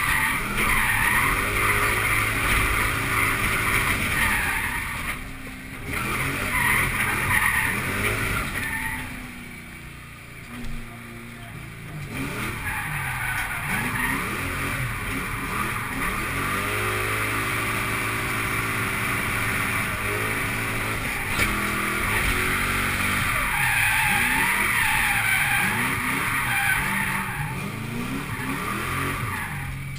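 Ford Mustang GT's 4.6-litre V8 revving up and down hard, with tyres squealing in several long stretches as the car drifts, heard from inside the cabin. About a third of the way in the engine drops back to a quieter, lower run for a few seconds before pulling hard again.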